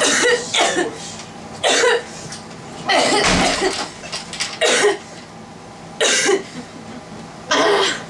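A person coughing hard and repeatedly, about six separate coughs or short coughing bouts roughly a second apart.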